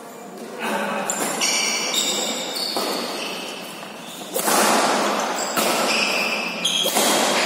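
Badminton doubles rally in a reverberant hall: racket strings smacking the shuttlecock about six times, a second or so apart, each hit ringing on in the echoing room. Short high squeaks of shoes on the court come between the hits.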